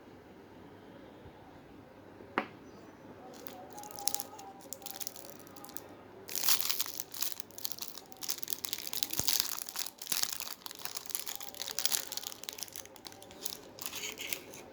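Choco Roundz packet being crinkled and torn open: a single sharp click about two seconds in, then crackling rustle that turns dense and continuous from about six seconds.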